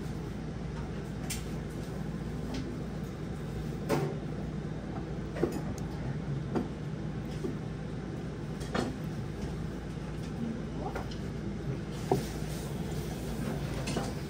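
Restaurant counter ambience: a steady low hum with scattered light clinks and knocks of tableware, about half a dozen in all.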